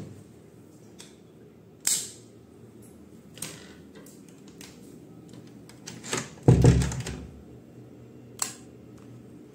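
Scattered sharp clicks and knocks from things being handled close to the phone's microphone, with a heavier thump about six and a half seconds in, over a faint steady hum.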